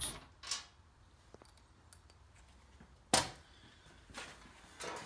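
A sheet-metal breaker-panel cover being lifted off. It is mostly quiet, with a sharp metallic clack about three seconds in and a couple of softer knocks near the end.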